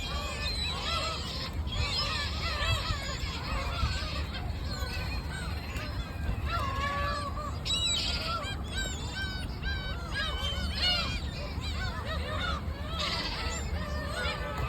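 A flock of seagulls calling over one another: many short, overlapping cries that rise and fall, over a steady low rumble.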